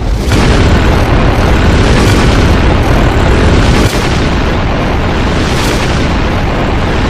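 Cartoon ray-gun beam sound effect: a loud, continuous explosive blast as a handheld device fires a large energy beam, with a few brief surges.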